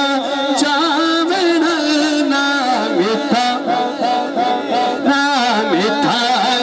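A man singing a devotional naat into a handheld microphone, his voice amplified and held in long, wavering, ornamented melodic lines that slide up and down in pitch.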